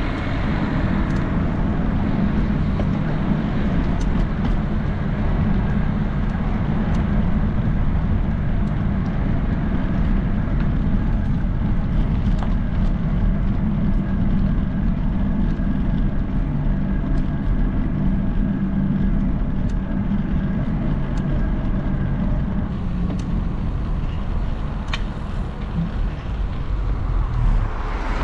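A motor vehicle engine running steadily, a continuous low hum with a faint steady drone over it, amid street traffic noise.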